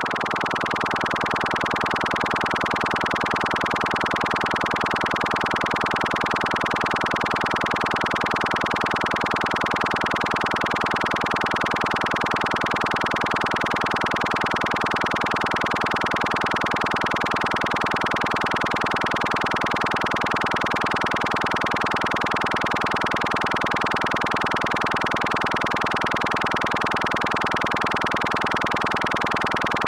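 Synthesized laser-ray sound effect: a dense electronic buzz with rapid modulation, centred high in the midrange and held steady at a constant level.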